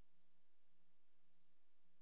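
Near silence: only a faint steady hiss and low hum, the noise floor of a newsreel with no sound track.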